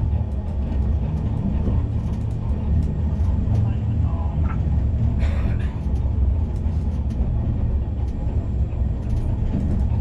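Streetcar running along its track, heard from inside the car: a steady low rumble of wheels and motors with scattered light clicks. A brief hiss comes about five seconds in.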